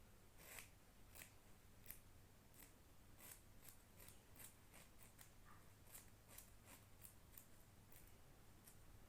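Faint, irregular run of short clicks and scrapes, about one to two a second, from hand work on a Rubik's speed cube's spring tensioner.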